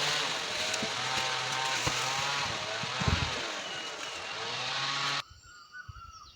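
Two-stroke chainsaw engine running hard, its pitch wavering up and down as it revs. The sound stops abruptly about five seconds in, leaving a much quieter background.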